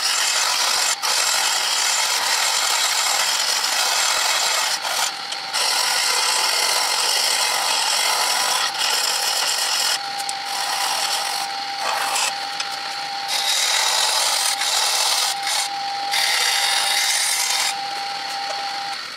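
Hand gouge cutting a spinning wood blank on a wood lathe: a continuous hissing scrape of wood being shaved away, broken by short breaks where the tool lifts off. A faint steady whine joins about halfway, and the cutting stops right at the end.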